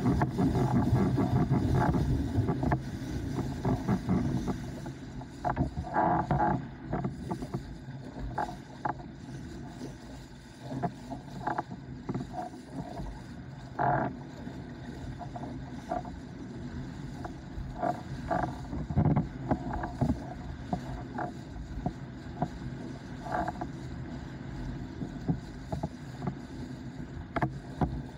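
Windsurf board sailing: a steady rush of wind and water that is loudest in the first few seconds and then eases, with scattered sharp slaps.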